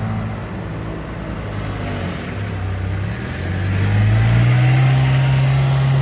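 Doosan DX140LC excavator's diesel engine running. About four seconds in its revs rise, and it holds steady at a higher, louder pitch.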